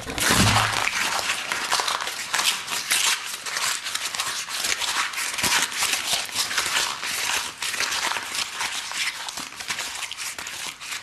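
Close-miked chewing of cardboard pizza box: dense, continuous crunching and crackling with a low thud just after the start, easing off a little near the end.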